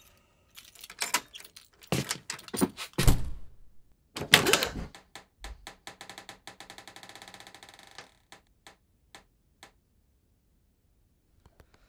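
Knocking and a rattle at the door under the stairs as it swings open: a run of irregular knocks and thuds, a loud bang about four seconds in, then a fast clicking rattle that slows to scattered clicks and stops.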